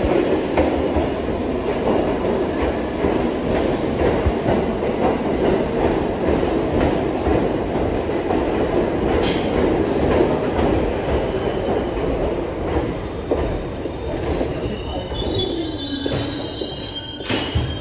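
New York City Subway train of R62-family cars running on the rails with a steady loud rumble. Near the end the rumble fades as a falling whine and high wheel squeal come in, and a sharp knock sounds just before the end.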